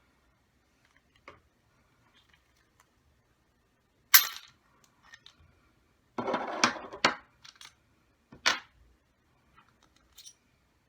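Small metal engine parts and tools clinking on a hard work surface while a model nitro engine is being taken apart: a sharp clack about four seconds in, a short rattling scrape around six to seven seconds, another clack near eight and a half seconds, and a few lighter clicks.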